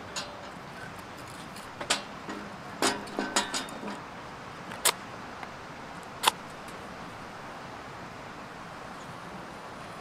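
Kindling sticks knocking and clattering as they are laid on the steel grate of a folding fire pit, a cluster of knocks about two to four seconds in, then a match struck on its box a little after six seconds. Under it runs the steady rush of a creek.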